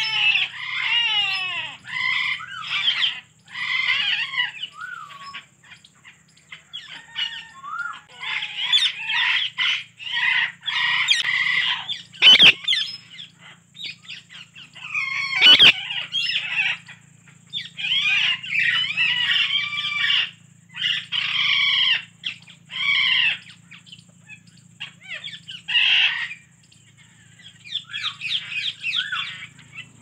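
Alexandrine parakeet chattering and squawking in bursts of rapid calls with gliding notes, pausing for a few seconds now and then. About halfway through come two sharp clicks about three seconds apart.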